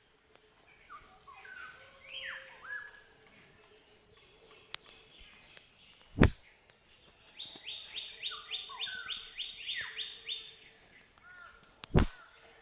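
Songbirds singing, with short chirping phrases and then a fast run of about a dozen falling notes. Two sharp, loud smacks, about six seconds in and again near the end.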